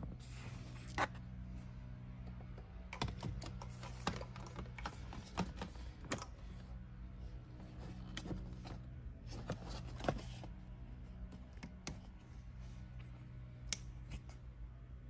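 Scattered small plastic clicks and taps from hands handling a car's door-sill trim and wiring-harness connectors, with a few sharper clicks, over a faint steady low hum.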